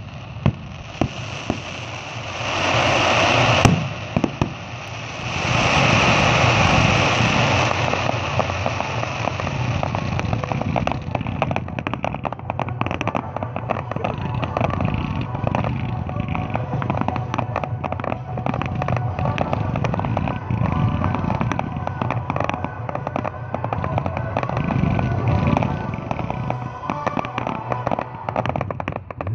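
Aerial fireworks display: a few sharp bangs near the start, then two long stretches of loud hissing crackle with a single sharp bang between them. From about eight seconds on, a dense, continuous run of rapid crackling pops follows.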